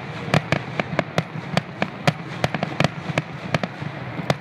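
Fireworks display: a rapid, irregular string of sharp pops and bangs, several a second, from aerial shells bursting, over a steady background noise.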